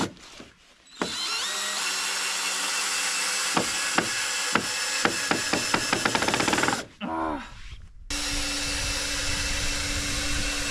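Power drill driving screws into hard wood: a long run of the motor with sharp clicks that come faster towards its end, stopping about seven seconds in, then a second steady run starting a second later.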